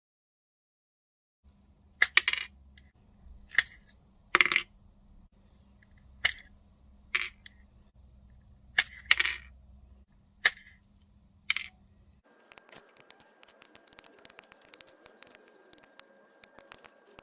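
About a dozen sharp metallic taps and clicks, one at a time and irregularly spaced, from hand tools working a small metal spinner blade. About twelve seconds in they give way to a quieter patch of fast light ticking.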